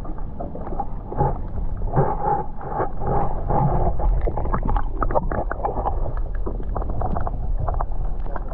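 Wind rumbling on the microphone, with irregular knocks and rustles of handling.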